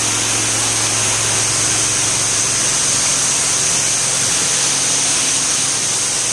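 Pressure washer running steadily: the hiss of its high-pressure water jet over an even, low motor hum.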